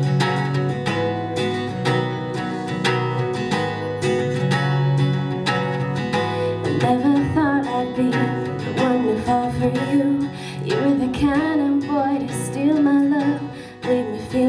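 Acoustic guitar playing a song's introduction, note by note, with a woman's voice starting to sing over it about seven seconds in.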